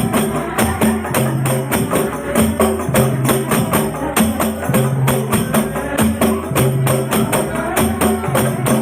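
Rebana frame drums played as an ensemble in a fast, steady rhythm of dense hand strikes, with lower drum notes recurring beneath.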